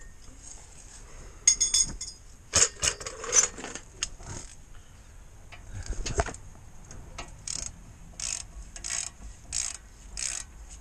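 Hand ratchet wrench being worked on a bolt. From about halfway through there is a run of short clicking bursts, about one every 0.7 s, one on each return stroke of the handle. Before that come a few separate clanks and knocks of tools.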